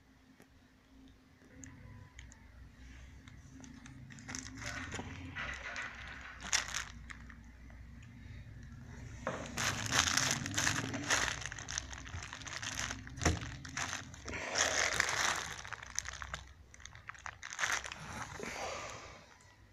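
Plastic bubble wrap crinkling and rustling in irregular spells as the LED light panel resting on it is handled, with one sharp click partway through.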